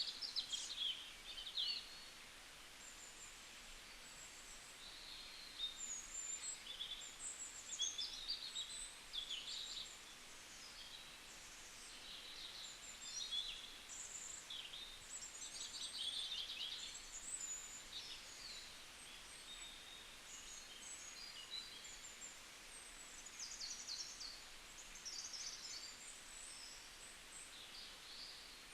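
Several small birds chirping and calling in many short, varied chirps and trills throughout, over a faint steady hiss.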